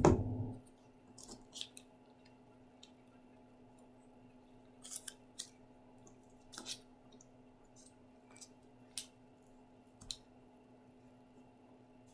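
A single knock on the tabletop, the loudest sound, then scattered small clicks and paper rustles as a white craft-glue bottle and paper cut-outs are handled, over a faint steady hum.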